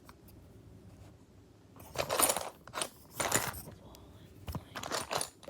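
Small metal butterfly-knife parts and screws being handled and clinking on a hard surface: a quiet second or two, then several short clattering bursts.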